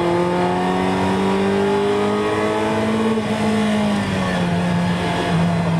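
Ferrari 328's V8 engine heard from inside the cabin on track, its revs climbing slowly under power, then dropping about four seconds in and running steady.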